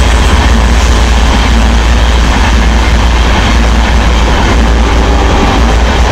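EMD two-stroke V16 diesel engine of a WDP 4D locomotive running under load as the train passes close by: a loud, steady low rumble.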